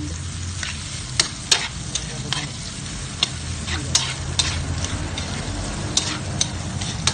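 Sliced onions and green chilies sautéing in oil in a metal wok, sizzling steadily, while a spatula scrapes and clinks against the pan every half second or so as they are stirred.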